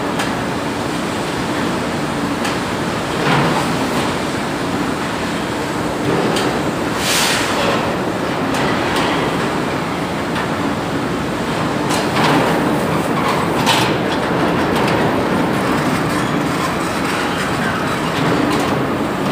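Automatic cement bag-loading machine running: a steady mechanical rattle and hum, with a few sharper clanks now and then.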